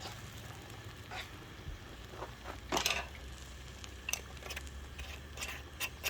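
Scattered scrapes and clicks of a pan of scrambled eggs being stirred and seasoned, the loudest about three seconds in.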